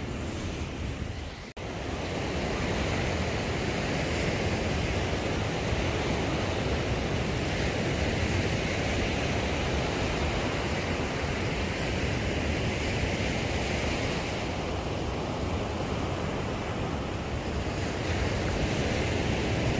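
Surf breaking and washing up a sandy beach, a steady rush of waves, with wind buffeting the microphone. The sound drops out briefly about a second and a half in, then carries on.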